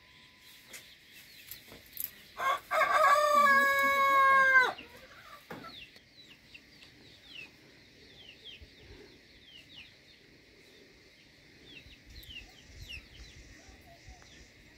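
A rooster crows once, a loud call of just over two seconds that holds its pitch and drops off at the end. Behind it there is a steady high hum and many short high chirps.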